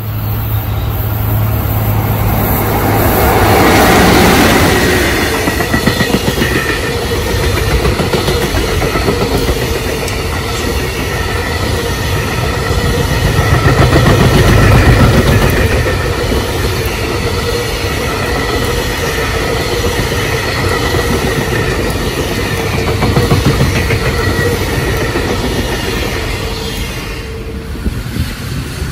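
Long container freight train passing at speed, its wagon wheels clattering steadily over the rail joints with a faint steady ringing tone under the rumble. The clatter drops away about two seconds before the end, as an electric commuter train comes by on the near track.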